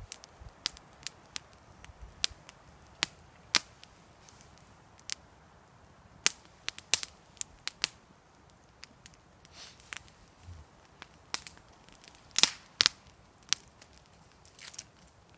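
Campfire crackling: sharp, irregular pops and snaps of burning wood, with two louder snaps close together about twelve and a half seconds in.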